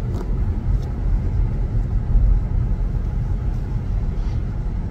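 Steady low rumble of road and engine noise from a 2014 Honda CR-V rolling slowly, heard from inside the car.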